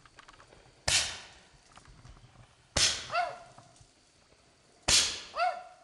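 Aerial fireworks going off: three sharp bangs about two seconds apart, each fading away. The last two are each followed half a second later by a short high-pitched cry that dips and then holds.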